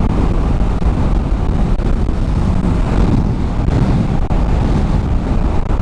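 Motorcycle ridden at highway speed, heard from the rider's position: steady wind rush over the microphone with the low drone of the engine and tyres underneath.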